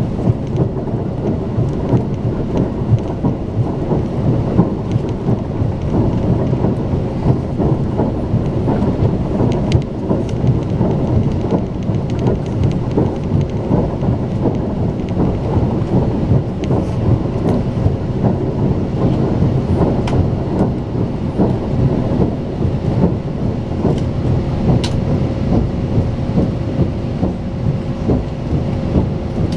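Steady rumble of a high-speed passenger train heard from inside the carriage while running at speed, with a dense patter of small knocks from the wheels on the rails and a faint steady hum.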